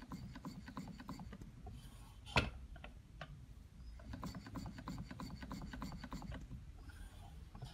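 Stuart Turner 10H model mill engine running on compressed air, its moving parts giving a fast, even clicking, with one louder knock about two and a half seconds in. The engine has a lot of slop in it.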